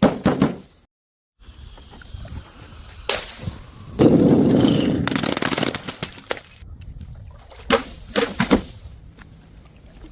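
Objects being crushed and broken: a few sharp cracks at the start, then a loud, long crash about four seconds in that dies away over about two seconds, and a quick run of sharp cracks near the end.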